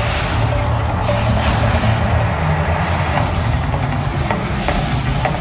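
The Mirage's man-made volcano erupting: its gas fire jets burn with a steady, loud rush over a deep low rumble.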